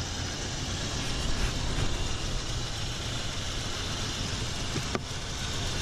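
1991 Ford Ranger's engine idling steadily, with a single brief click about five seconds in.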